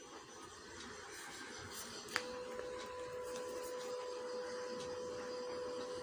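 Faint scratching of a pencil drawing on paper. About two seconds in there is a sharp click, and a steady mid-pitched hum starts with it and holds on.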